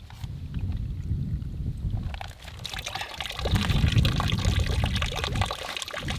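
Spring water pouring in a thin stream from a wooden spout onto stones, a steady splashing trickle that grows louder about halfway through, with a low rumble underneath.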